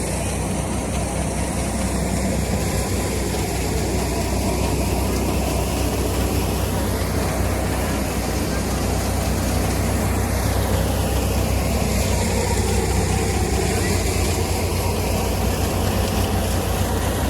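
Tractor engine running steadily at a constant speed, with a continuous mechanical noise over it.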